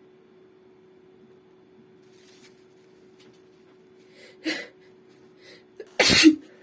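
A woman builds up to a sneeze with faint catching breaths and a sharp gasp about four and a half seconds in, then sneezes once loudly near the end. A faint steady hum runs underneath.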